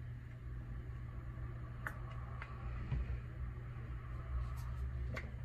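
A steady low hum with a few faint clicks and taps from plastic squeeze bottles of acrylic paint and a paper cup being handled while paint is layered into the cup.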